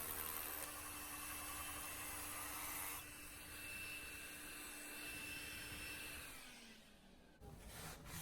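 Electric drill boring the anchor hole through a stone floor with a vacuum running at the bit. About three seconds in the noise drops, and around six to seven seconds the motor whine falls in pitch and winds down to a stop, followed by a few faint knocks.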